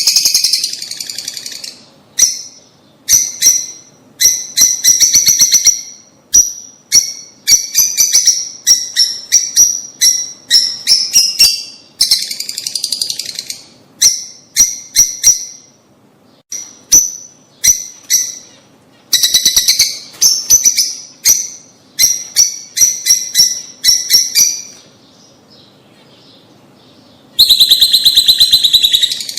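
Lovebirds (Agapornis) calling: rapid runs of shrill, high chirps repeated in quick series, with a few denser bursts of chatter and short pauses between them.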